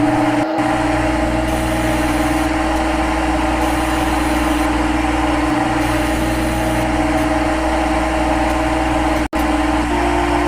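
CNC lathe running: a steady electric machine hum with a constant whine, the main tone stepping up slightly near the end.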